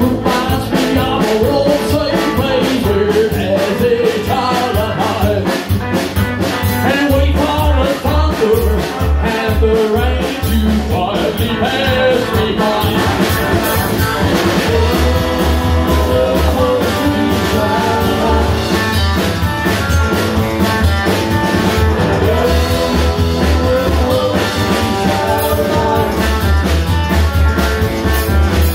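Live band playing a rock song on upright double bass, drum kit and guitar, amplified through a PA.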